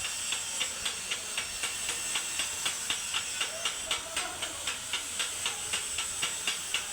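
Chipping hammer striking a freshly welded joint to knock off the slag: quick, evenly spaced sharp taps, about four a second, over a steady high hiss.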